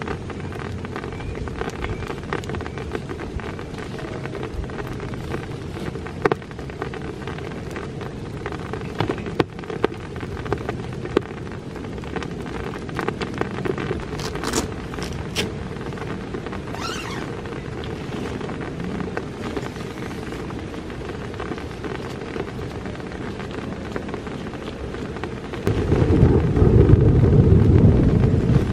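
Steady rain falling, with scattered sharper ticks of drops in the middle. Near the end a loud deep rumble sets in suddenly and continues.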